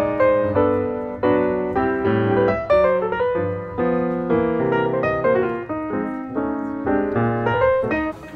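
Background music: a piano playing a melody over chords, each note struck and then fading.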